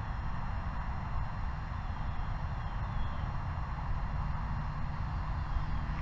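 Steady outdoor background noise: a fluctuating low rumble under a broad hiss, with a few faint high chirps about halfway through and no distinct event.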